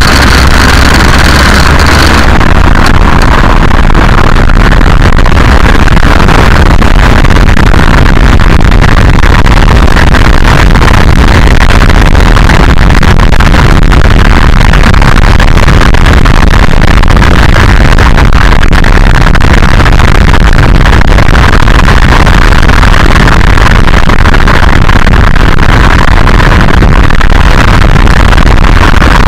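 Loud road and wind noise from a VW Golf Mk4 TDI being driven, picked up close to its suspension, with many short knocks and rattles: the knocking/rattling noise whose source the owner is trying to find. A steady hum stops about two seconds in.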